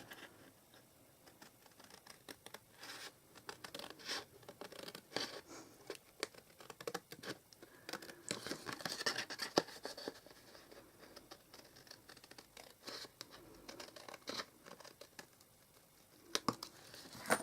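Scissors cutting through cardstock: faint, irregular snips and scratchy paper strokes.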